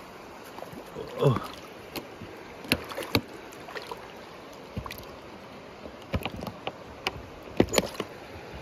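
Steady low rush of a shallow creek, with scattered light clicks and knocks, the sharpest near the end.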